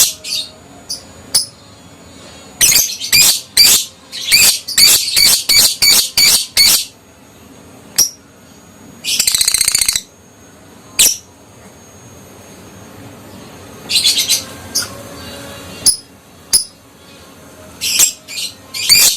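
Adult lovebird calling: sharp, shrill chirps in quick runs, with a dense buzzing trill lasting about a second near the middle.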